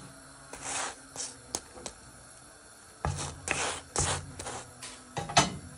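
Wooden spatula pressing and rubbing a roti as it puffs up on a hot pan: a string of short scrapes and swishes with a few light taps, the sharpest one near the end.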